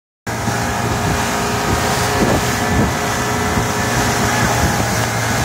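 Motorboat engine running steadily at towing speed, with wind buffeting the microphone.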